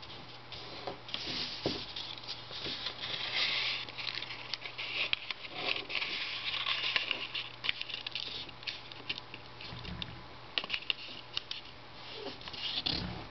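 A sheet of origami paper being folded and creased by hand on a wooden table: the paper rustles and slides, fingers rub along the folds to sharpen the creases, and there are scattered light taps and crinkles.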